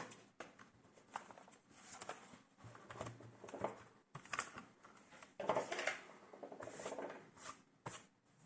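Irregular small clicks, taps and scraping from hands working on a laptop's plastic case and parts.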